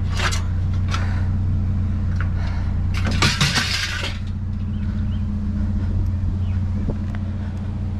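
A vehicle engine idles with a steady low hum, and about three seconds in there is a short clatter and rustle of junk being handled.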